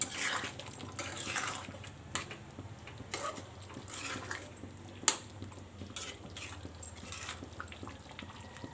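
Thick prawn and potato curry bubbling as it simmers in a kadai, with a few sharp clicks of a spoon against the pan, the loudest about five seconds in.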